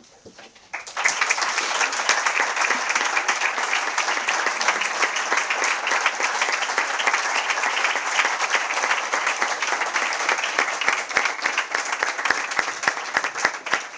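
A roomful of people applauding: a few scattered claps, then many hands clapping together from about a second in, steady and sustained.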